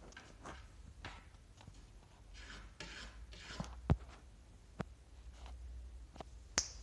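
Rustling and scattered light knocks of things being handled close by, with one louder knock about four seconds in.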